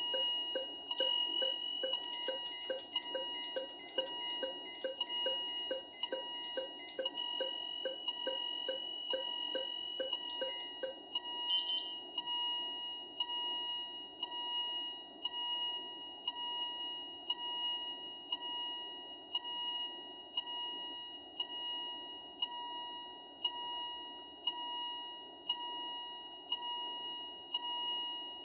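Electronic alarm tones from a Philips IntelliVue MP30 patient monitor and a ZOLL E Series defibrillator sounding together: a steady high-pitched tone with repeating beeps. A fast run of short beeps, a little over two a second, stops about 11 seconds in, leaving a slower regular beep about once a second.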